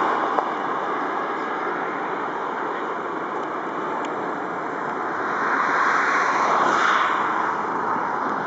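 Jet engine noise from a twin rear-engined regional jet on landing approach: a steady rushing noise that grows louder about six seconds in, then eases a little.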